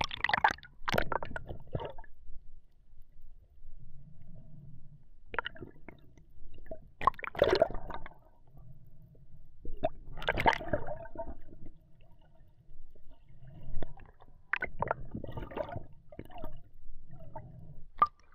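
Water sloshing and gurgling over an action camera as it dips in and out of the sea surface, in irregular bursts a few seconds apart.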